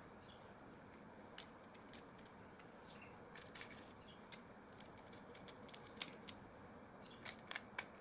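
Faint, scattered small clicks and taps of a small screwdriver and tiny screws being handled and fitted on a laptop SSD caddy, over near silence.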